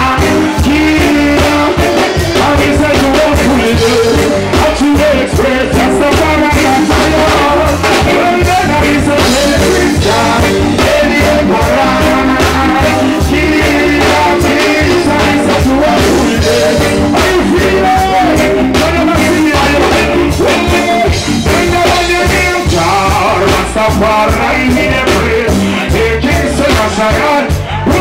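Live reggae band playing at full volume over the PA, with a male vocalist singing into a handheld microphone over drums, bass and keyboards.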